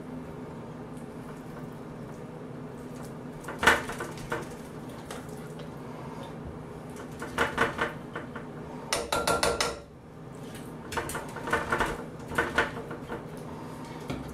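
Serving spoon scraping and clinking against a glass mixing bowl in several short bouts, scooping out a thick ground-beef filling.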